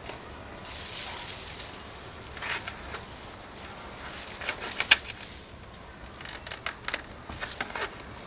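Leaves rustling and dry, crumbly potting soil and roots crackling and snapping as a deep-rooted clump of grassy plants is tugged and worked loose from a pot by hand. Irregular sharp cracks, the loudest about five seconds in.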